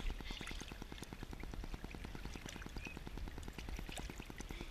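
Small waves lapping and gurgling against the side of a stand-up paddleboard, a quick uneven patter of water close to the microphone.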